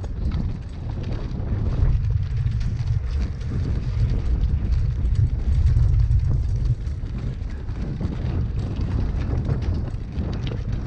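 Wind buffeting the microphone while a road bike is ridden over a rough forest trail, with a steady low rumble and many small rattles and clicks from the bike and tyres.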